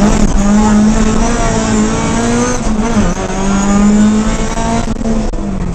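Ford rally car's engine running hard at high revs, heard from inside the cockpit. The revs jump up at the start and dip briefly about three seconds in before climbing again.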